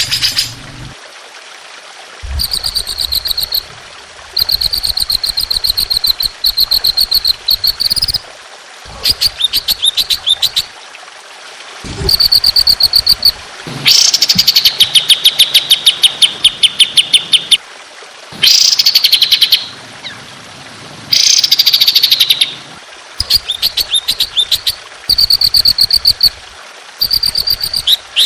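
A songbird delivers repeated bursts of rapid, high trilled notes, each burst about one to four seconds long with short pauses between. These are the long, rough 'tembakan' phrases used in masteran recordings to tutor caged songbirds.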